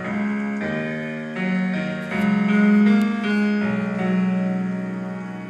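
Song intro of held piano-like keyboard chords, changing every half second or so, played loud through a Soundking SK 25000 amplifier and a home-built two-way tower speaker with two Dooge Sound woofers and a dome tweeter.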